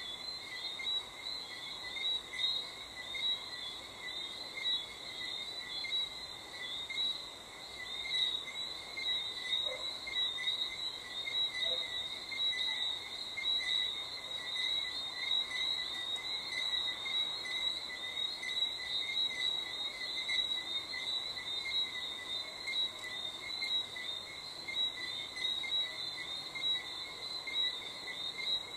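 Steady chorus of crickets and frogs: many high chirping trills overlapping without a break.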